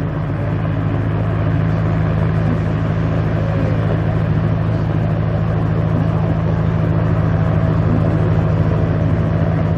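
Single-engine aerobatic propeller plane's engine and propeller droning steadily overhead, growing slightly louder.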